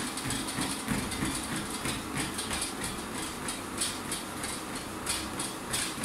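Running footfalls striking the belt of a motorised treadmill in a steady rhythm, over the steady noise of the treadmill running.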